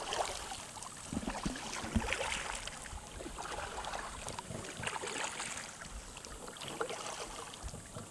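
Kayak paddles dipping and swishing through calm water in irregular strokes, with small splashes and light water lapping.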